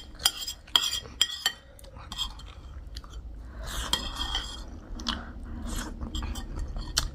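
A metal spoon clicks and scrapes against a ceramic plate a few times in the first second and a half, followed by close-up mouth sounds of eating: chewing and sucking food from the spoon.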